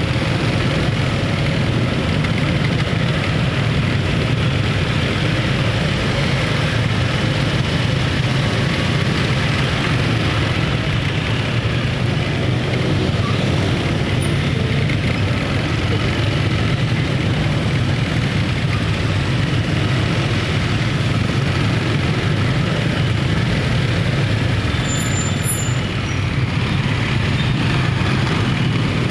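Steady road-traffic noise of vehicles crawling slowly along a busy city street, a constant low engine rumble with tyre and road noise over it.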